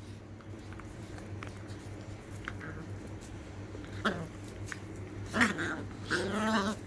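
Beagle puppies play-fighting, fairly quiet at first, then a short yip about four seconds in, a sharper yelp a little later and a longer wavering cry near the end.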